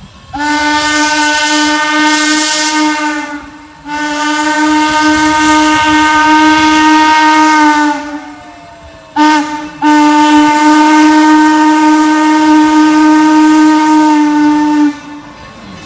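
Steam whistle of Norfolk & Western No. 475 blowing four blasts, long, long, short, long: the grade crossing signal as the locomotive nears the road crossing. Each blast is one steady, many-toned pitch, and the last long one cuts off about a second before the end.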